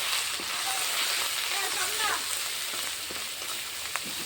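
Onion and spice mixture sizzling in hot oil in a kadai, with a couple of short clicks from the stirring spoon.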